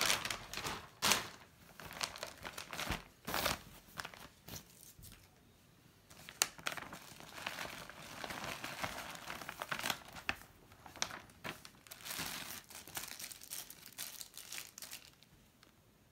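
Plastic packaging (a poly mailer, a plastic shopping bag and a clear bag) crinkling and rustling as it is handled and opened. It comes in irregular bursts with a few sharp crackles, and dies down near the end.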